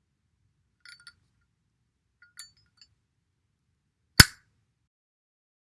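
A few faint, light metallic clinks, then one loud, sharp click a little after four seconds in.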